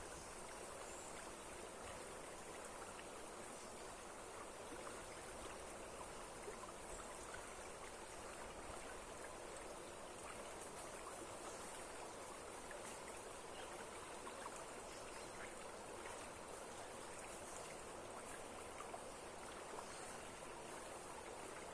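Water rushing steadily over a waterfall that is running strong, an even, unbroken noise.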